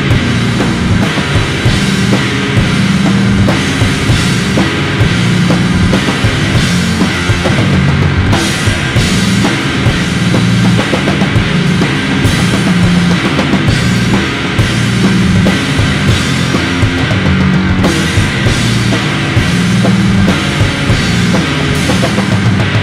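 Loud recorded trash-rock song: a rock band with a drum kit playing at an even level, with no break.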